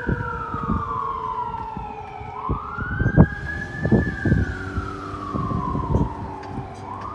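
Fire engine siren wailing from a 2017 E-One Typhoon pumper on an emergency response, its pitch sweeping up quickly and falling off slowly in a cycle of about five seconds. A few low thumps sound in between.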